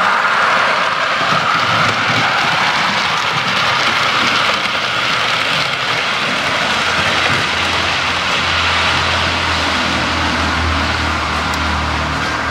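Sound-fitted model diesel trains running on a DCC model railway layout: a steady rush of engine sound from the models' on-board speakers along with wheel noise on the track. A low steady engine hum comes in about two-thirds of the way through.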